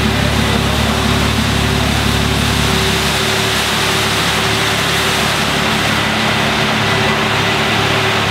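Ferrari LaFerrari's V12 engine idling steadily. Its deep low rumble thins out about three seconds in.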